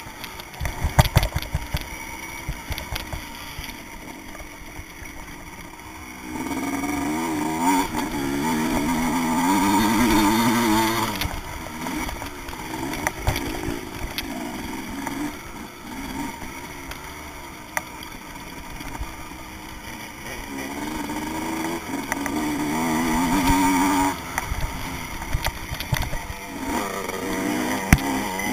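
Vintage motocross motorcycle's engine racing over a dirt track, its revs climbing and dropping again and again through the gears. There are a few sharp knocks about a second in.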